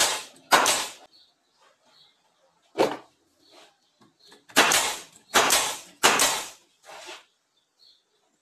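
Pneumatic nail gun firing into pine boards, about seven sharp shots, each followed by a short hiss of exhaust air. Three come close together about halfway through.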